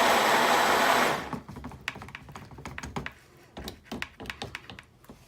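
Stick blender running steadily in soap batter to thicken it, cutting off about a second in, followed by scattered light clicks and knocks.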